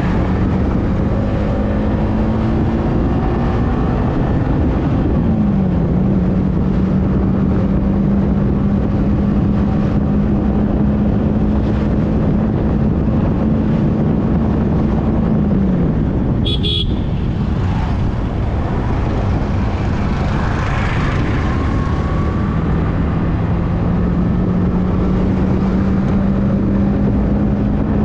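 Yamaha R15M's single-cylinder engine running steadily while riding, its note dropping in pitch twice and then holding, with wind noise rushing over the microphone.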